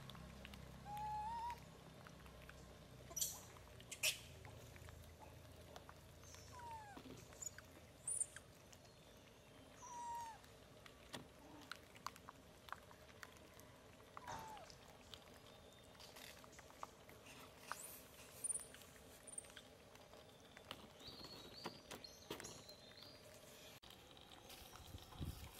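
Macaques giving scattered short, squeaky calls, some sliding up or down in pitch, with two sharper, higher squeaks about three and four seconds in.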